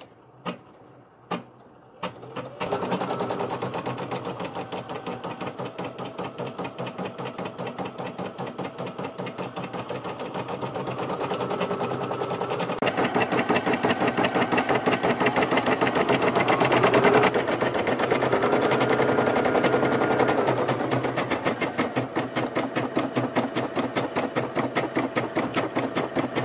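Brother computerized embroidery machine: a few separate clicks, then about two and a half seconds in it settles into fast, even stitching. This is the first colour of a design being sewn onto lace, and the stitching grows louder partway through.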